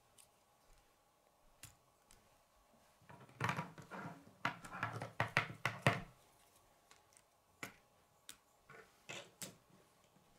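Plastic K'nex rods and connectors clicking and rattling as they are handled and snapped together, in a dense flurry from about three to six seconds in, with scattered single clicks before and after.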